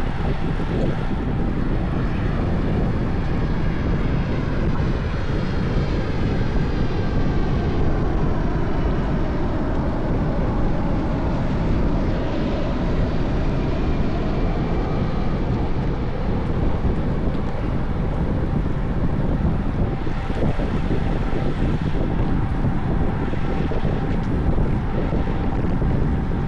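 Wind rushing over the microphone of a moving bicycle, a steady low rush, with a faint engine-like tone that dips and rises in pitch around the middle.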